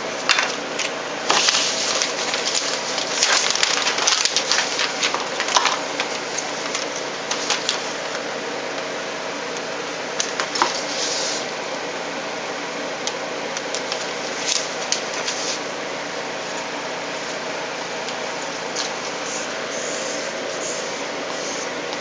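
Rustling and crackling of adhesive tape and fabric being handled, folded over an edge and pressed down by hand. It comes in scattered bursts, busiest in the first six seconds and sparser after, over a steady background hum.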